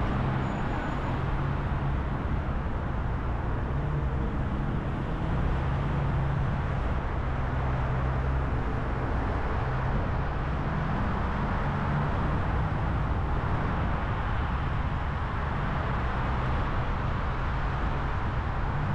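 Steady road noise of a car travelling at highway speed: a continuous rush of tyre and wind noise over a low engine drone.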